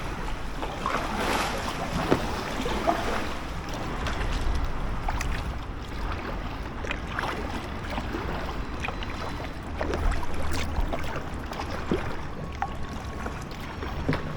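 Paddle strokes in calm canal water from a packraft: irregular splashes and drips, with wind rumbling on the microphone.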